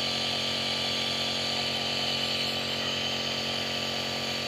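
Compressor nebulizer running: a steady motor hum with a hiss of air.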